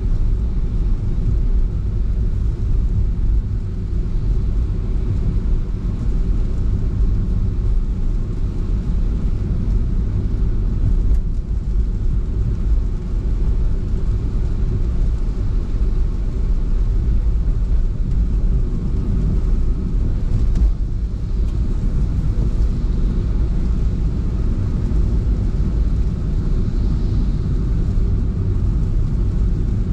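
Car driving along, a steady low rumble of engine and tyre noise picked up by the vehicle-mounted camera.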